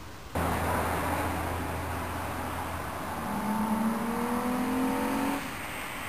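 1997 VW GTI VR6's 2.8-litre VR6 engine with an aftermarket air intake, accelerating: a low rumble, then a note that rises steadily in pitch from about halfway through. It starts suddenly and cuts off abruptly near the end.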